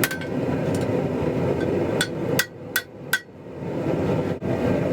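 Hammer striking a 3/8-inch square mild steel bar on the anvil while bending its scroll curves: a few sharp ringing blows, one at the start and four close together around the middle. A steady low rumble runs underneath and drops away briefly while the blows land.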